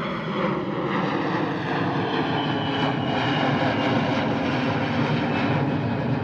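An airplane passing overhead: a loud, steady engine rumble with a faint whine. It builds to its loudest about four seconds in, and the whine falls slightly in pitch as the plane goes by.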